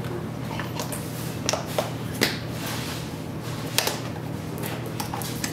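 A few sharp clicks and taps from gloved hands handling plaster dental moulds and tools on a worktable, over a steady low hum.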